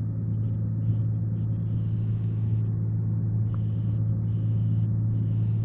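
Cessna 182's piston engine and propeller running steadily in flight, a constant low drone with no change in pitch.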